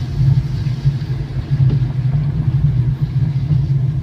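Steady low rumble of a car's tyres on the road, heard from inside the car as it coasts in neutral with the engine off.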